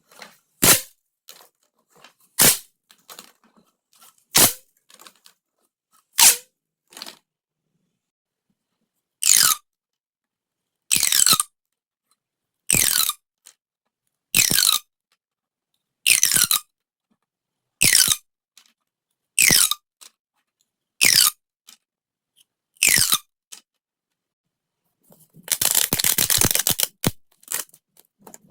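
Corrugated plastic pop tubes being stretched and squashed. First come a few sharp pops about two seconds apart, then a steady series of half-second ratcheting crackles, each sliding down in pitch, and near the end a longer, denser crackling run.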